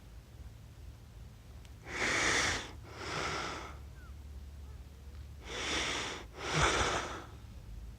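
Sleeping person snoring: two noisy, wheezy breaths about three and a half seconds apart, each in two parts.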